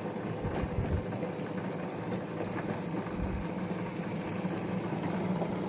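Ultra table-top wet grinder running steadily, its stone grinding soaked urad dal into batter, with a constant motor hum and a few soft knocks.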